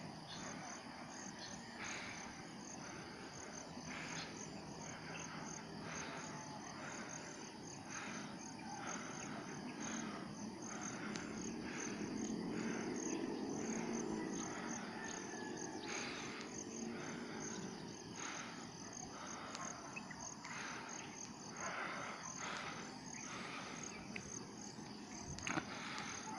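Crickets and other insects chirping steadily: a rapid high-pitched pulsing trill, with a lower rasping call repeating about once a second. A faint low hum swells and fades midway.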